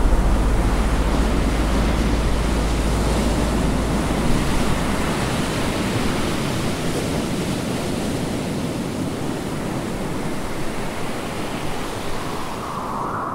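Strong wind and breaking ocean waves in heavy weather around a sailboat, heard as a steady rushing noise. Wind rumbles on the microphone for about the first five seconds, and the whole gradually eases.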